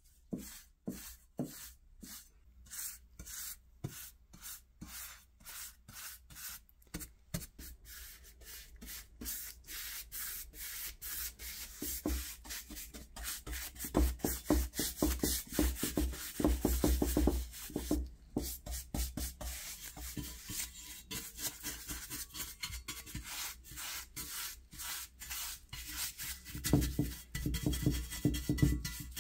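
Bristle paintbrush stroking a wet coating onto metal plates, a run of repeated short scrubbing strokes that get quicker and louder about halfway through.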